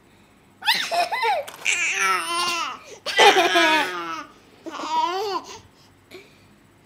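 A baby babbling and laughing in high-pitched squeals, four bursts of about a second each with the pitch sliding up and down.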